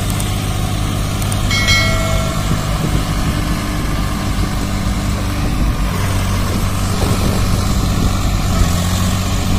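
Diesel tractor engines running steadily, the nearest a Swaraj FE 744 whose wheels are stuck in mud; the engine note shifts slightly about six seconds in.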